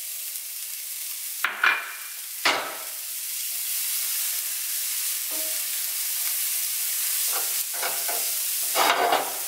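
Chopped shallots and garlic sizzling in butter spread in a nonstick frying pan, with a few scrapes and taps of a knife and then a silicone spatula stirring them. The sizzle grows louder a little over a third of the way in, and the stirring strokes cluster near the end.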